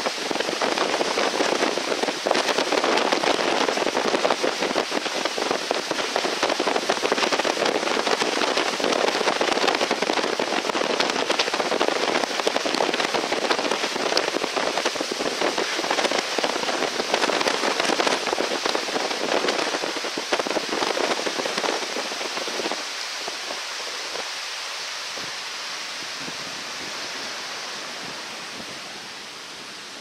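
Floodwater of the swollen Shimanto River rushing and churning in a steady, dense noise. It fades down about three-quarters of the way through.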